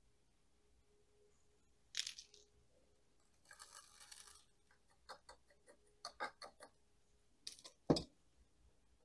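Fine akadama and lava bonsai soil being pressed down with a small hand tool in a tiny pot: a scrape, gritty crunching of the granules, and a few light clicks, then one louder knock near the end.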